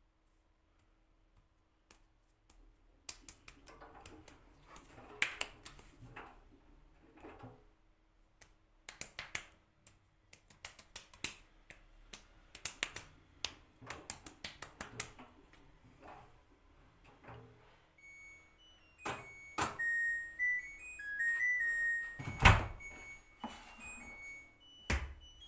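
LG F4R3VYW3WE front-loading washing machine at the end of its cycle: irregular clicks and knocks from the machine, then its short end-of-cycle melody of stepped beeping tones. A loud thump follows, and the door clicks open near the end.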